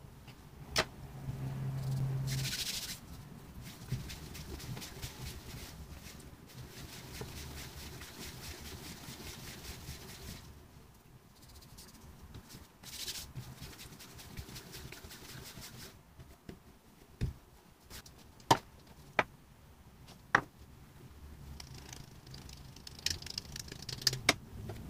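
Faint, rhythmic rubbing of hands rolling soft pizza dough into balls on a kitchen countertop. A few sharp knocks come in the second half. Near the end, flour hisses lightly as it is sprinkled into a metal baking pan.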